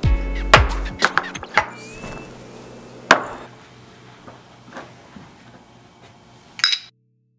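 Sharp knocks and clinks of shot glasses being set down on a tabletop, several in the first few seconds, over background music that fades away. A short noisy burst near the end, then the sound cuts off.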